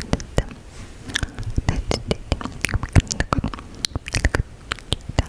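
Close-miked ASMR mouth sounds: rapid, irregular wet clicks and smacks of the lips and tongue.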